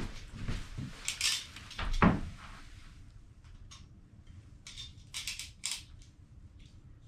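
A few dull thumps of a person stepping and kneeling down onto a plywood board on the floor, the loudest about two seconds in. Then several short scratching strokes follow as a razor knife scores a clear plastic liner sheet.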